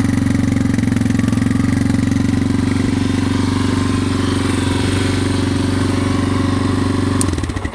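Yamaha Raptor 250 quad's single-cylinder four-stroke engine idling steadily, then shut off near the end, where the sound cuts out suddenly.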